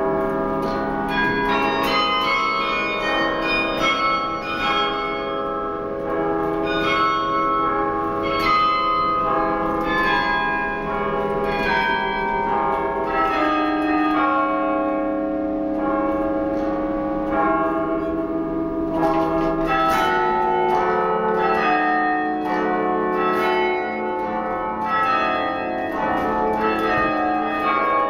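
A 72-bell bronze carillon being played from its baton keyboard: a continuous melody of struck bells, the notes ringing on and overlapping, with lower bells sustaining under quicker higher notes.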